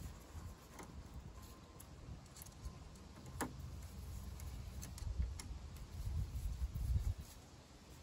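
Hand screwdriver slowly working a screw on a car's front end, giving scattered light metallic clicks and ticks, with one sharper click about three and a half seconds in. An uneven low rumble sits underneath.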